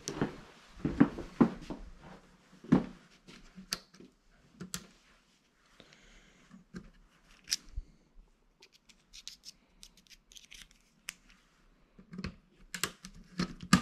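Footsteps on the floor in the first few seconds. Then small scattered clicks and scrapes as a screwdriver loosens the terminal screws and the wires are freed on the old thermostat's subbase.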